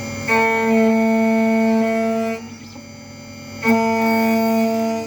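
Background music: two long held notes, each about two seconds, with a short quieter gap between them.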